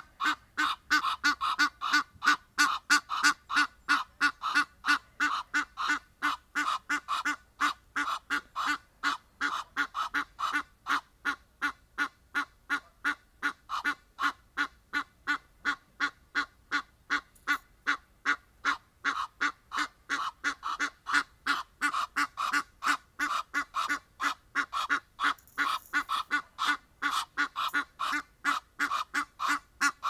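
Egyptian goose honking in a long unbroken series of short, harsh calls, about four a second.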